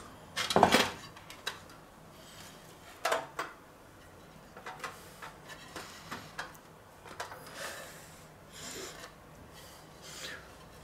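A clay roasting pot knocks down onto a wooden cutting board about half a second in. A whole raw duck is then laid into the pot on a bed of sliced vegetables and pressed into place by hand: soft rubbing and shuffling with a few light clicks and knocks.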